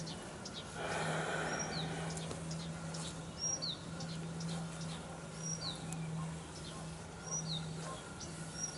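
A songbird repeating the same short high call about every two seconds: a brief level note that drops into a falling slur. A steady low hum runs underneath.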